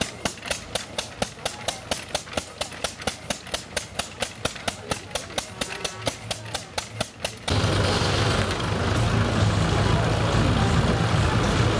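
Vintage single-cylinder stationary engine running steadily with sharp, evenly spaced beats about four a second, driving a drag saw through a log. About two-thirds of the way in it cuts off abruptly to the louder, steady drone of a tractor engine running a PTO-driven cone log splitter.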